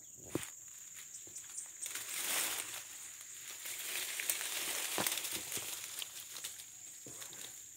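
Leaves and twigs rustling and crackling as foliage is pushed aside and handled, with scattered small snaps, louder in the middle. A steady high-pitched tone runs underneath.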